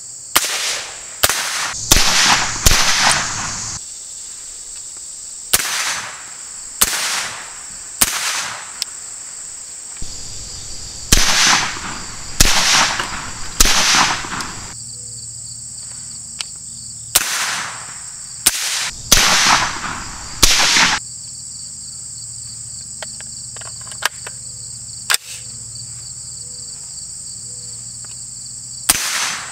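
Suppressed 10.5-inch AR pistol firing some sixteen shots in quick strings of two to five, with pauses between. Insects buzz steadily underneath.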